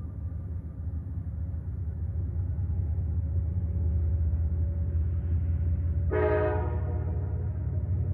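Train rumbling steadily and growing louder, with a single short horn blast about six seconds in that fades away within a second.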